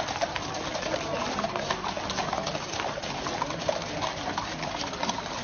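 Several horses walking over a wet yard, their hooves clopping in many short, irregular clicks over a steady background hubbub.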